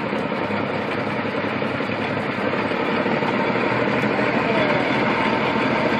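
A truck's engine running steadily at idle.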